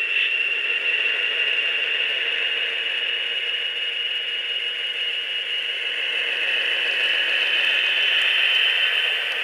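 Sound decoder in an HO-scale model diesel locomotive playing its diesel engine sound through the model's small speaker. It is a steady, tinny running sound with a rattle, growing a little louder near the end.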